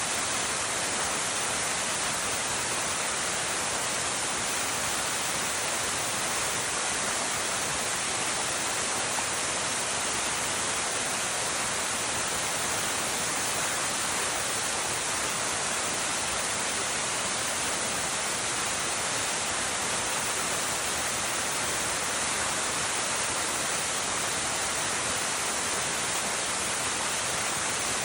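Waterfall: a steady, even rush of falling water, constant throughout with no breaks or other events.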